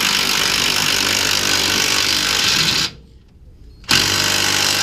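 Impact wrench hammering in two long runs, stopping briefly about three seconds in and starting again a second later.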